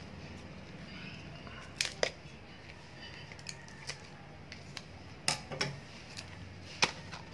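Kitchen scissors snipping at the sealed lid of a clear plastic deli container, heard as a few sharp, separate clicks with fainter ticks between them as the stiff plastic tub is handled.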